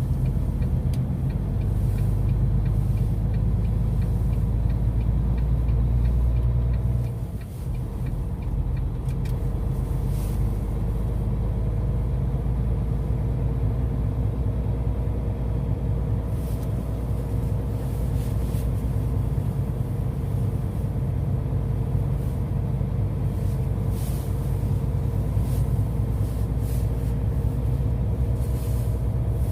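Heavy truck driving: a steady low engine and road rumble, with a short drop in the engine sound about seven seconds in.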